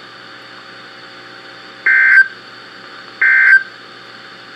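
NOAA Weather Radio SAME end-of-message data bursts, the digital code that closes an emergency alert broadcast. Two short, raspy bursts come about 1.4 s apart, and a third starts right at the end, over a faint steady radio hiss.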